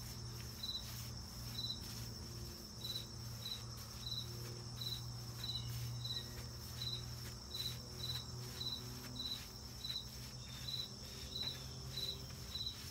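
Insect chirping in a regular rhythm, about one and a half short chirps a second, over a steady high hiss and a low hum.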